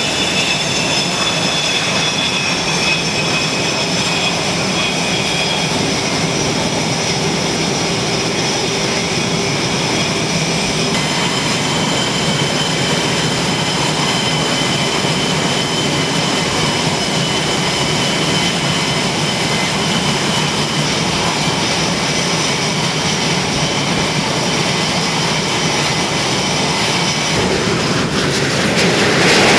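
F/A-18 Hornet jet engines running on a carrier's flight deck, a steady multi-tone high whine over a rushing hiss. Near the end a louder rushing noise swells as the engines run up ahead of the catapult launch.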